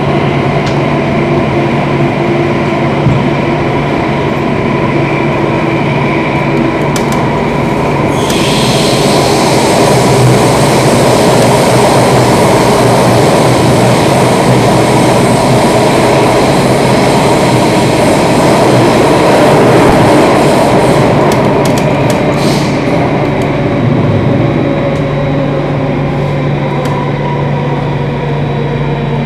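Singapore MRT train running through an underground tunnel, heard from inside the carriage: a steady rumble of wheels and running gear. A louder rushing noise builds about a quarter of the way in and eases again near the end.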